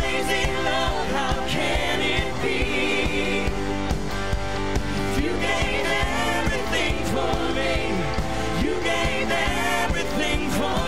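Live worship band playing a contemporary gospel song, with several singers' voices together over electric guitar, keyboard and a steady beat.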